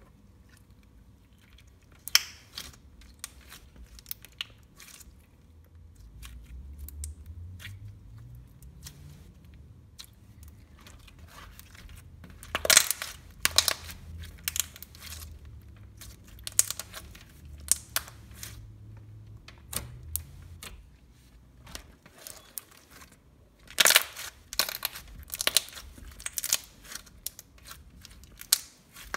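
Hands squishing, stretching and pressing thick cream slime, giving irregular sharp clicks and pops, in clusters about 12 seconds in and again about 24 seconds in.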